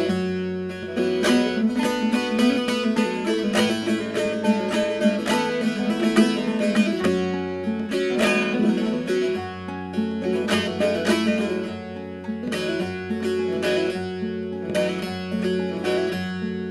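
Bağlama (saz) and acoustic guitar playing an instrumental passage of a Turkish folk song: quick plucked notes over steady ringing low notes.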